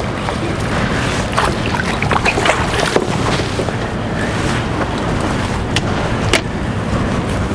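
Wind buffeting the microphone over splashing water as a hooked peacock bass thrashes at the surface on a bent rod. A cluster of splashes comes about one to three seconds in, and two more sharp ones come near the end.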